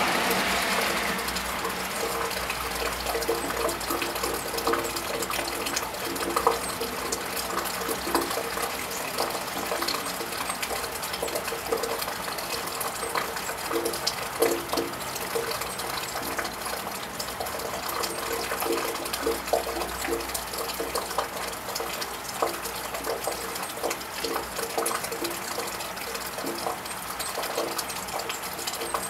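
Steady rain on a tiled roof, with many small drops ticking and dripping. The tyre hiss of a passing car on the wet road fades out at the start, and a faint low rumble of traffic comes and goes.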